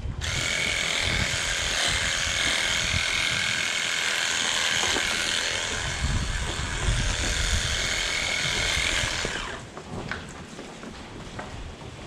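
A small electric motor running steadily with a high, even whine, which stops a couple of seconds before the end.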